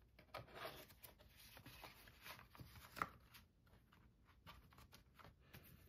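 Faint rustling and light taps of a cardboard album digipack and its paper inserts being handled: the inserts slid back inside and the package folded shut and pressed flat, with one sharper tap about three seconds in.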